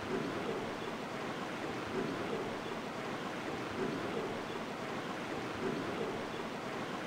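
Rushing water: a steady roar of floodwater that swells about every two seconds.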